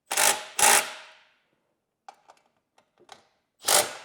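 Cordless power driver run in short trigger bursts, driving bolts home: two quick bursts at the start and two more near the end, each trailing off, with light clicks between.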